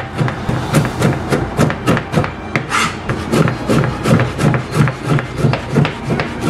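Chef's knife chopping cauliflower into small pieces on a cutting board: quick, even knocks of the blade on the board, about three a second.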